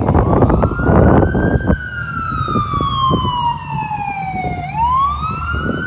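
Emergency vehicle siren wailing. Its pitch rises, falls slowly for about three seconds, then climbs again near the end. Wind rushes over the microphone for the first couple of seconds.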